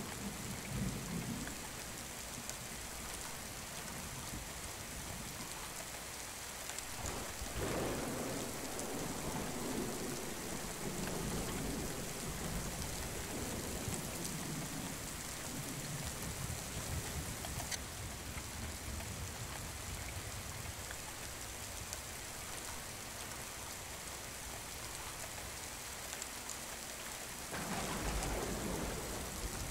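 Thick tomato sauce sizzling in a steel pot while a wooden spatula stirs it, a steady crackling hiss. Near the end there is a louder burst as a glass lid is set on the pot.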